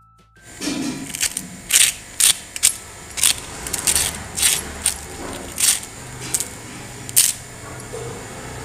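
Crisp fried potato sticks being snapped and broken apart by hand: a dozen or so sharp crunching cracks at irregular intervals, starting about half a second in.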